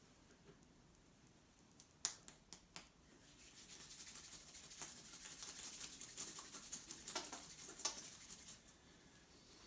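Hands rubbing over skin during a massage, with a scratchy, brushing texture. The rubbing is preceded, about two seconds in, by four quick sharp clicks.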